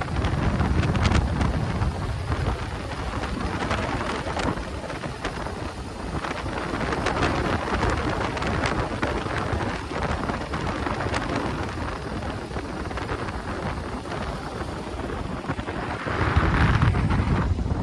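Wind rushing and buffeting over the microphone of an open 1932 Ford roadster driving at road speed, with the car's running noise underneath. The low buffeting is heavier at the start and again near the end.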